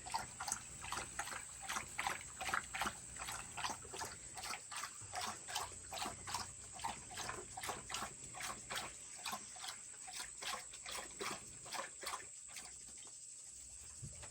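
Dog panting steadily, about two and a half breaths a second, stopping near the end.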